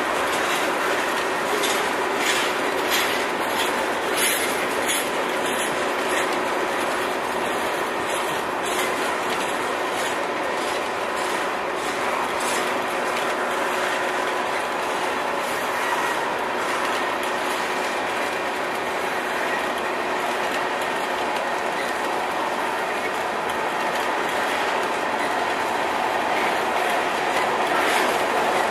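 Freight train tank cars rolling past, their steel wheels running on the rails in a steady clatter, with clicks over the rail joints, bunched most in the first few seconds.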